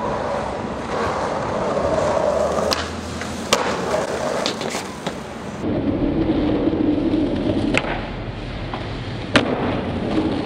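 Skateboard wheels rolling over concrete pavement, broken by several sharp clacks of the board striking the ground. The loudest clack comes about nine seconds in.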